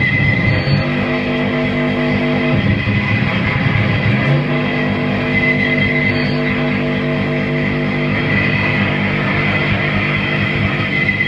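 Live harsh noise performance: a loud, dense wall of distorted sound over a steady low drone of stacked pitches, which drops out about two and a half seconds in and comes back a couple of seconds later. A thin high tone runs through it, and a short high blip recurs about every five to six seconds.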